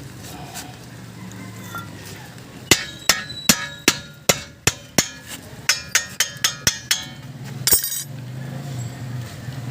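Hammer striking metal, about a dozen sharp ringing blows a few per second, over a low steady hum. A short hissing burst follows near the end.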